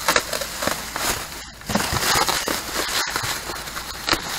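Cardboard box and plastic-wrapped foam packing cushions being handled: an irregular crinkling and rustling with many small crackles and clicks.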